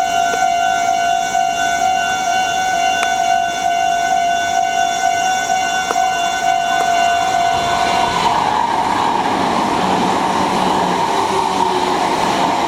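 Level-crossing warning bell ringing steadily with a repeating electronic tone. About eight seconds in, a Meitetsu express made of a 6500 series and a 6800 series electric train runs through the crossing, and the noise of its wheels on the rails grows over the bell.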